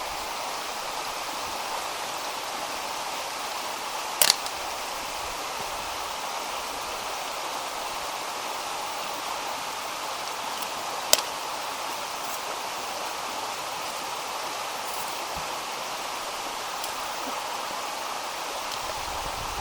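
Creek water running steadily, with two short sharp knocks about four and eleven seconds in.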